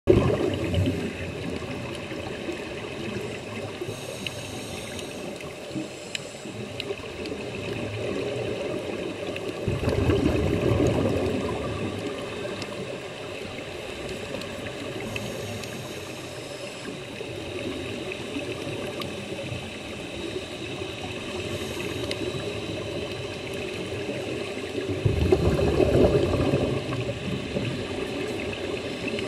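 Scuba breathing heard underwater: exhaled bubbles from a diver's regulator bubbling in louder surges near the start, around ten seconds in and again around twenty-five seconds in, with a steady underwater hiss between them.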